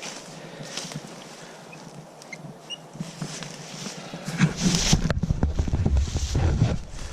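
Rustling and crunching in dry leaves and brush, getting louder about four seconds in, with a heavy low rumble of handling noise on the microphone.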